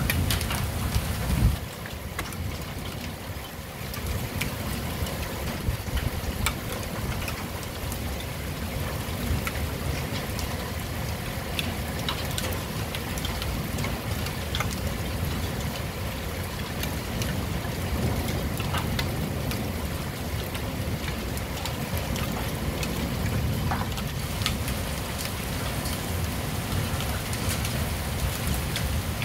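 Steady heavy rain during a thunderstorm, with scattered sharp ticks of drops striking nearby surfaces over a low rumble. A louder stretch at the start, the tail of a thunder roll, dies away about a second and a half in.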